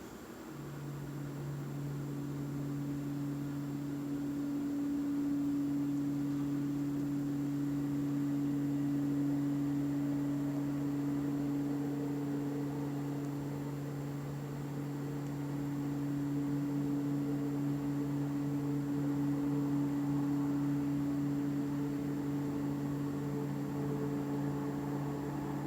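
Loud, steady low humming drone of unexplained origin, a vibrating noise made of a few held tones; it comes in about half a second in and stops near the end.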